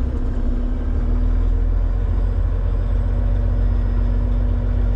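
Truck's diesel engine running, heard from inside the cab: a steady low drone with a steady hum over it, growing a little louder about a second in.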